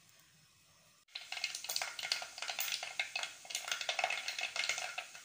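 Mustard and fenugreek seeds spluttering in hot oil in a clay pot: dense, irregular crackling and popping that starts about a second in. The seeds bursting is the sign that the tempering oil is hot and ready for the onions to go in.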